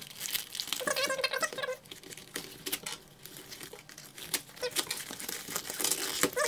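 Plastic wrap crinkling and packing tape and cardboard tearing as a shipping box is opened by hand, with many small crackles and rips.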